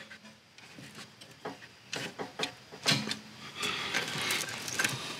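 Steel ring pins being pushed into a PTO quick-attach adapter and their rings snapped over: a series of light metal clicks and clinks, then a lighter rattle in the last second or two.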